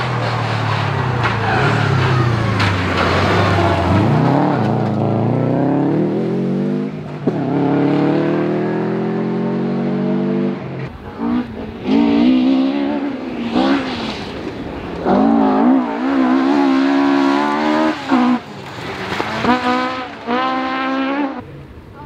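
Subaru Impreza rally car's flat-four engine pulling hard and changing up through the gears as it approaches. Then a Ford Escort Mk2 rally car's engine at high revs, the pitch wavering quickly up and down as the throttle is worked through a sideways gravel corner.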